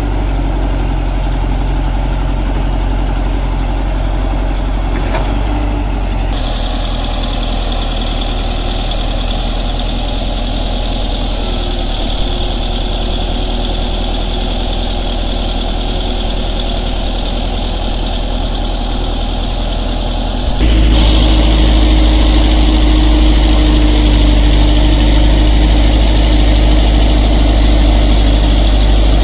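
Heavy construction machine's diesel engine running steadily at working load. The sound shifts suddenly about six seconds in and again about two-thirds of the way through, growing louder and deeper at the second change.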